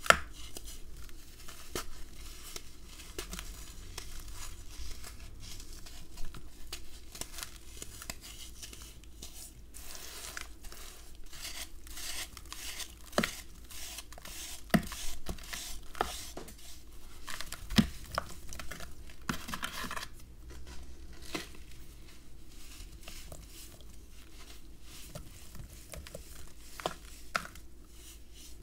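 Blocks of red sand being crumbled by hand into water in a plastic basin: a steady run of gritty crunching and crackling, with a few sharper snaps. Partway through, a block is shaved with a serrated plastic scraper, and near the end the wet sand is squeezed and mixed.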